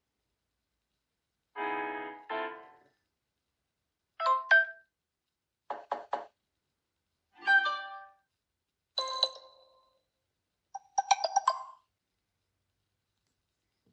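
Samsung Galaxy S7 edge notification sounds played one after another: about six short electronic chimes and jingles, each lasting under a second, with silence between them.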